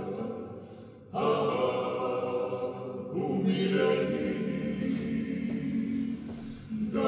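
A klapa, a male a cappella group, singing in close multi-part harmony with long held chords. The singing starts about a second in and has a brief break between phrases near the end. It is heard through a television's speakers.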